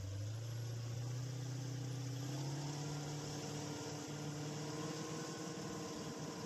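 2004 Donzi 22 Classic powerboat's engine running under way, a low hum that rises a little in pitch over the first couple of seconds and then holds steady, over a steady hiss.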